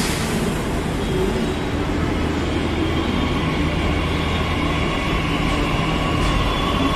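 Delhi Metro electric train running, a steady rumble of wheels on rail with several steady high tones over it.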